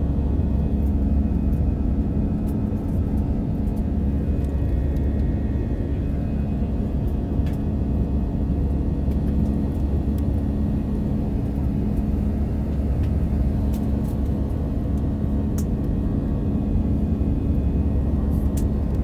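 Steady cabin roar of an Airbus A320 climbing after takeoff: engine and airflow noise heard from inside the cabin, a constant low rumble with a steady hum over it and a few faint ticks.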